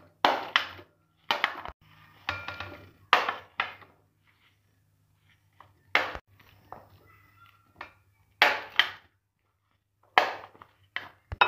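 Chopped fruit tipped and scraped off a plate into a glass bowl: a string of short, sharp clinks and clatters of the plate against the bowl, with a couple of quiet pauses.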